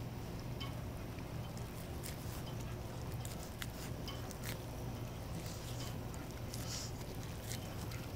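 A schipperke dog gnawing kernels off a corn cob held in someone's hands, with scattered small crunches and clicks of biting over a steady low hum.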